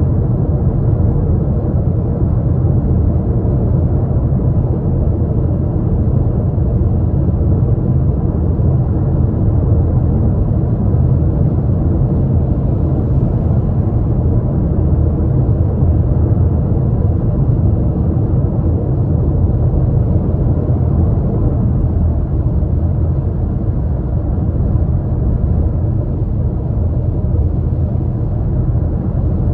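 Steady road and tyre rumble with engine noise inside a car's cabin while cruising at highway speed.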